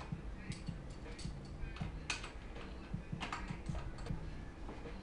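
Irregular light clicks and knocks of metal on a PVC pipe roller and its bolts in a wooden frame, as the roller's bolts are loosened and adjusted so it spins freely.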